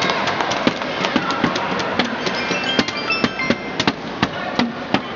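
Crowd noise in a badminton hall: a steady din cut by many sharp, irregular claps and cracks, several a second, with a few short high-pitched calls near the middle.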